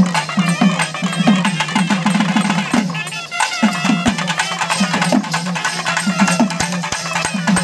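Lively folk music driven by fast drumming: deep drum strokes that each drop in pitch, about three a second, under a busy melody.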